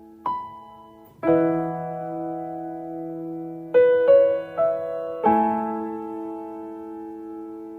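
Soft background piano music: slow, sustained chords and single notes, each struck and left to ring out.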